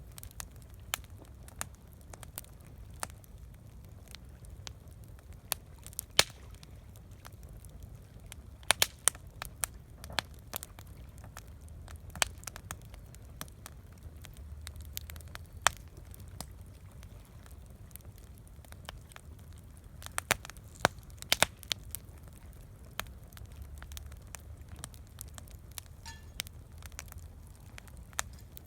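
Campfire crackling, with sharp irregular pops and snaps scattered throughout, a few of them loud, over a low steady rumble.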